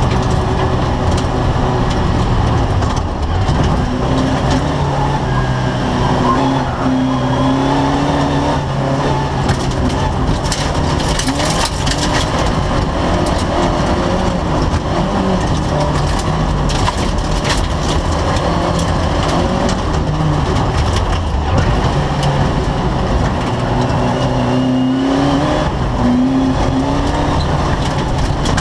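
Race car engine heard from inside the stripped cabin, revving up and down as the car is driven hard through the gears on a dirt track, with a run of sharp knocks and rattles from the body about a third of the way in.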